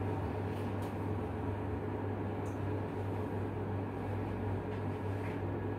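Steady machinery hum with an even hiss, holding a constant level, with a few faint light clicks in the first few seconds.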